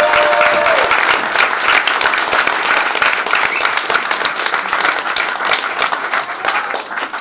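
Audience applauding, a dense run of clapping that begins to die away near the end.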